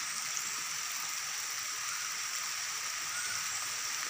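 Steady rain falling on palm fronds and foliage: an even, unbroken hiss.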